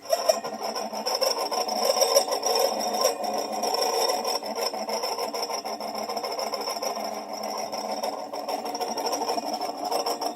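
Moskvich-410 heater fan's small brushed electric motor running steadily, with a constant high whine over a rough whirr. Its commutator has been freshly cleaned, its brushes checked and its grease renewed.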